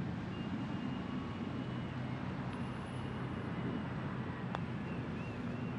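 Quiet outdoor ambience: a steady low hum like distant traffic, with a few faint high chirps and a single faint click about four and a half seconds in.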